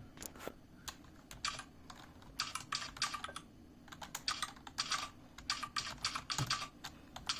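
Simulated mechanical-keyboard key clacks from the Mechvibes app, triggered by typing on an ordinary keyboard: irregular runs of quick clicks with short pauses between them.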